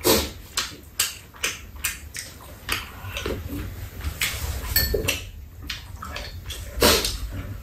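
Spicy chicken soup slurped from spoons, amid a run of short, sharp clicks and smacks of eating, about two a second at first and sparser later.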